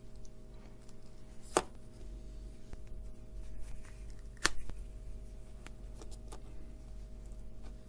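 Two sharp clicks about three seconds apart, with a few fainter ticks, from hand work on a small electronics kit's circuit board, over a steady low hum.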